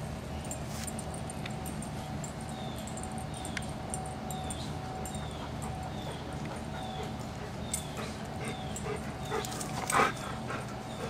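Dogs at play whimpering and yipping in short calls, with one loud yip about ten seconds in.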